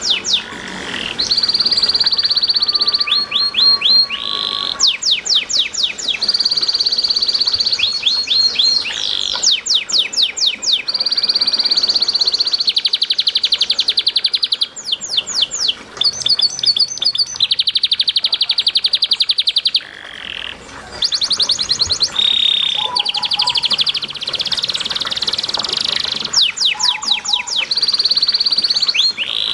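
Domestic canary singing a continuous high-pitched song: long, rapid rolls held steady for two to three seconds at a time, alternating with quick runs of repeated sweeping notes.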